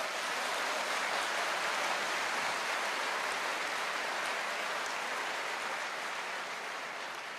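Large audience applauding steadily, a dense even clatter of many hands clapping that dies down near the end.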